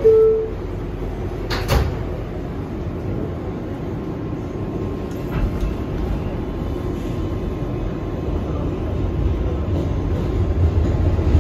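R188 subway car doors: the last note of the falling two-tone door chime, then the doors sliding shut with a knock about two seconds in. The train then pulls out, its motor and wheel rumble building toward the end.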